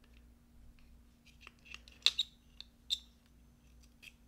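Small plastic clicks and taps as a car clock's circuit board and display are pressed and seated into their black plastic housing, with two sharper clicks about two and three seconds in.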